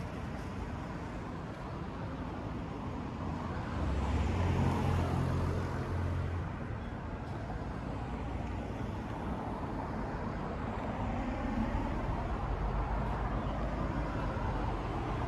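City street traffic: a steady hum of cars, with one vehicle's engine coming close and louder for a couple of seconds about four seconds in.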